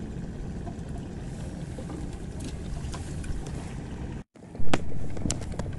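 A steady low engine rumble that cuts off suddenly about four seconds in. It is followed by a few sharp clicks and one loud knock.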